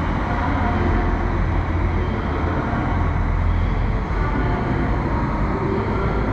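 Steady low rumble of a train at a station platform, with a dense wash of station noise over it.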